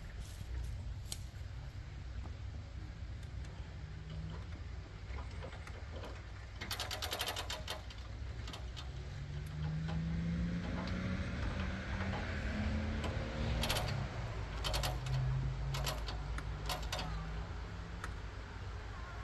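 A motor running with a steady low rumble, its hum rising and falling in pitch through the middle, with short bursts of rapid metallic clicking or rattling about seven seconds in and again near the three-quarter mark.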